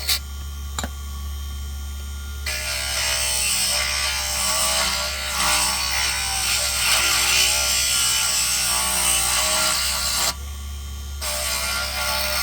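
Small wood lathe running with a steady motor hum while a tool cuts into a spinning wooden lure blank, giving a loud rasping noise. The cutting stops for the first couple of seconds and again for about a second near the end, leaving only the motor.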